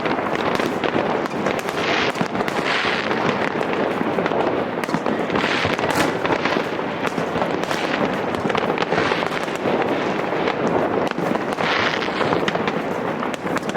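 Fireworks going off without a break: a dense run of bangs with crackling bursts every second or two.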